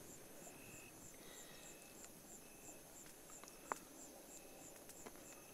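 Faint night insects: a cricket chirping steadily, about three high chirps a second. A single sharp click about three and a half seconds in.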